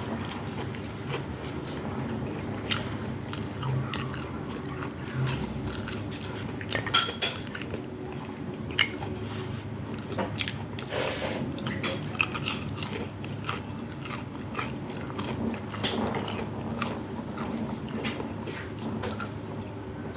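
Close-miked eating: biting and chewing with crunches, and now and then cutlery clinking on a plate, over a steady low hum.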